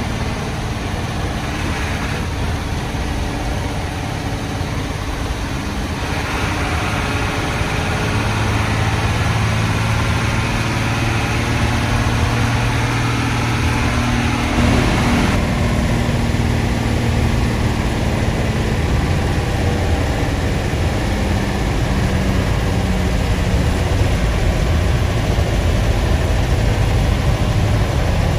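Old Hino diesel bus engine running under way, with its growling exhaust. The engine works harder from about six seconds in, and its note changes abruptly about halfway through.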